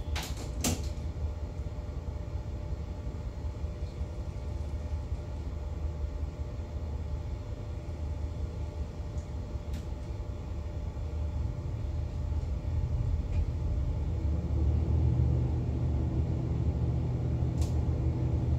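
Superyacht's engines running with a low, steady rumble while the boat manoeuvres in the marina, growing louder about two-thirds of the way through. A couple of sharp clicks just at the start.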